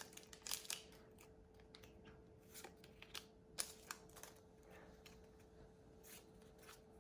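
Near silence with faint, scattered clicks and slides of Pokémon trading cards being handled, with one sharper click about three and a half seconds in, over a faint steady hum.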